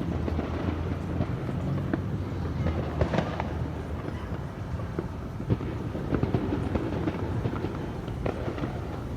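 Distant firecrackers going off: scattered sharp pops, a few louder ones about three and five and a half seconds in, over a steady low rumble.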